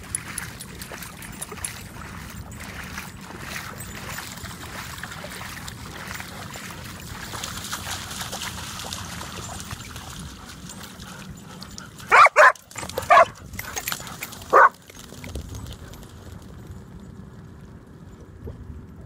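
Dogs splashing through shallow water, then a dog barks four short, sharp times about two-thirds of the way through, the first two close together.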